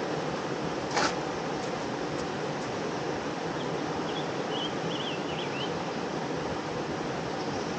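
Steady rushing of river water, with one sharp click about a second in and a few faint high chirps a little past the middle.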